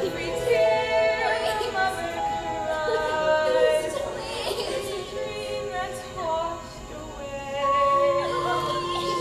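A song from a stage musical: a woman singing over instrumental accompaniment, loud and continuous, easing off briefly about seven seconds in.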